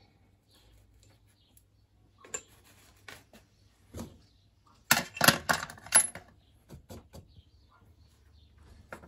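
Small metal engine parts clinking and clattering as they are handled and set down on a workbench: scattered light clicks, then a burst of louder metallic knocks about five seconds in lasting about a second.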